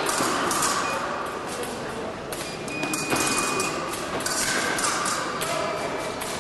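Fencing hall din during an épée bout: thuds and knocks of footwork and blade play over background voices in a large, echoing hall, with a brief high steady tone about three seconds in.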